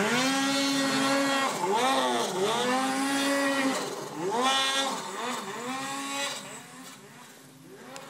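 Two-stroke snowmobile engine revving up and down in repeated throttle blips, its pitch rising and falling about once a second. It dies down near the end.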